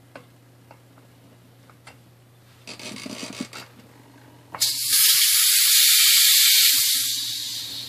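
Compressed oxygen hissing loudly out between a loosened regulator and a portable O2 tank, starting a little past halfway and fading near the end. This is the sound of a leak: the regulator is not tight on the tank. It is preceded by a brief rubbing sound.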